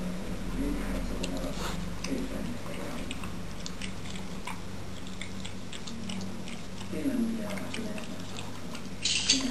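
A beagle eating from a plate on a tiled floor, with irregular small clicks of chewing and licking. A brief sharp noise stands out near the end.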